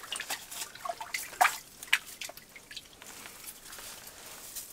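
Water splashing and dripping as a small northern pike is pulled by hand up out of an ice-fishing hole: a scatter of short wet splashes and clicks over the first couple of seconds, then only faint drips.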